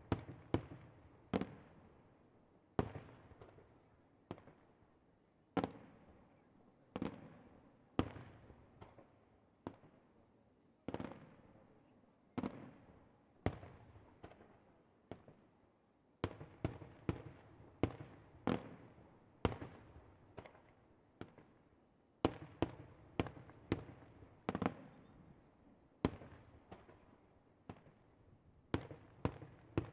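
Aerial fireworks exploding overhead: a continuous irregular series of sharp bangs, some single and some in rapid clusters, each trailing off in a rumbling echo.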